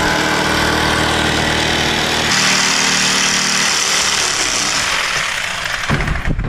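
Jigsaw fitted with a fine-tooth clean-cut laminate blade, running and cutting through a sheet along a marked line. The sound changes about two seconds in, the low hum dropping and a higher hiss coming up, and the saw stops about six seconds in.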